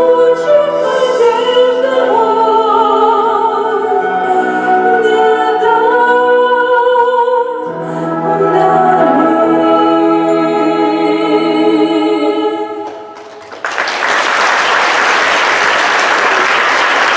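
A song from a stage musical sung with music, with long held sung notes, ending about 13 seconds in. A few seconds of audience applause follow.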